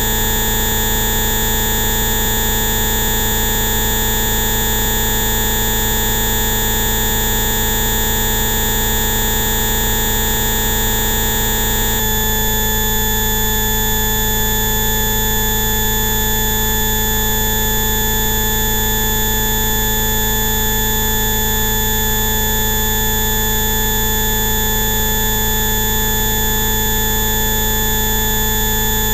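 Electronically generated steady tones, many pitches sounding at once over a hiss-like bed, as used in a 'Rife frequency' bioresonance track. About twelve seconds in, the set of tones switches abruptly to a different one.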